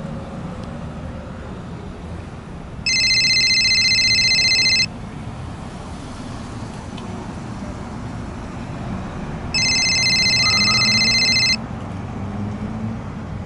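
A telephone ringing twice, each ring about two seconds long with a pause of about five seconds between, over a steady low background rumble.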